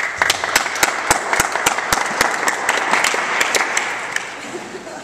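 A small audience applauding, starting suddenly and dying away over the last second or so.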